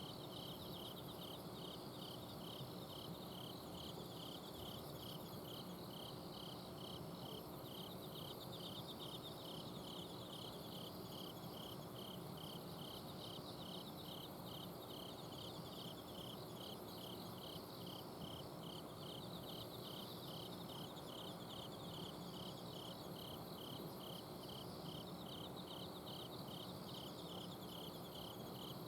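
Autumn crickets and other night insects singing: a regular, even train of chirps with fainter high trills coming and going above it. A steady low hum from an air-conditioner outdoor unit runs underneath.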